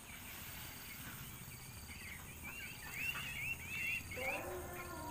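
A flock of ducks calling, many short chirping calls overlapping, busiest in the second half. About four seconds in, a steady droning tone with overtones starts up underneath.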